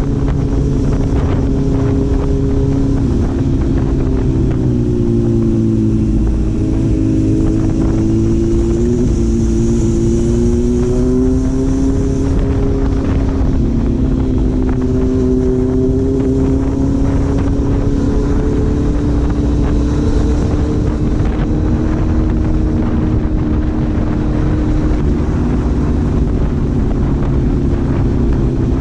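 Four-cylinder engine running under way, its note sliding down and up with the throttle in the first half, then holding fairly steady.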